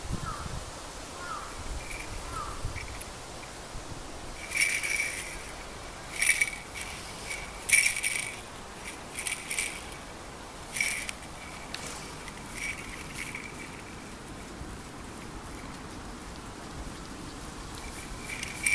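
A small bell jingling in a run of short, irregular shakes about four to eleven seconds in, with a few fainter jingles later and a louder one right at the end.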